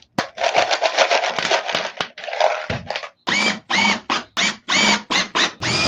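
Clattering of sheetrock screws being handled, then a cordless drill driving screws in short trigger pulls, its motor whine rising and falling with each of six or seven bursts.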